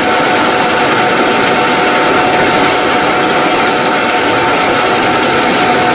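A wheat flour milling machine running steadily under load: a loud, even mechanical drone with a steady whine, unchanging throughout.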